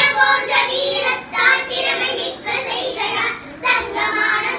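Young girls singing a song together, their voices held in sustained notes with short breaks between phrases.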